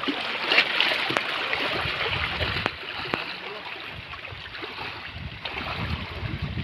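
Water sloshing and splashing around legs wading through shallow sea water, with wind buffeting the microphone and a few sharp clicks.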